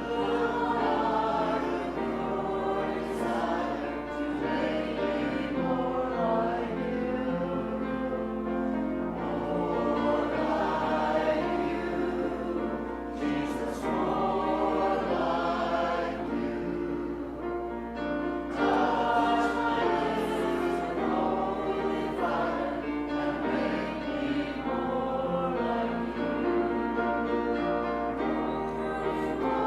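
A group of voices singing a hymn together, in sustained phrases with short breaks between them.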